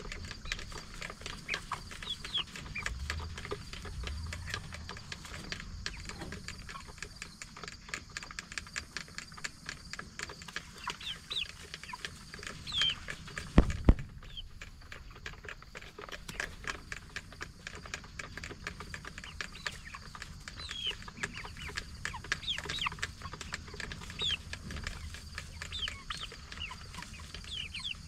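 A flock of 44-day-old Cornish Cross broiler chickens peeping and clucking, with short falling chirps scattered throughout over many small clicks and taps. Two sharp knocks about halfway through are the loudest sounds.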